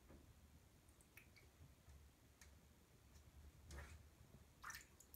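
Faint small splashes and drips of shallow bathwater in a bathtub: a few soft, short sloshes spaced about a second apart, the loudest near the end.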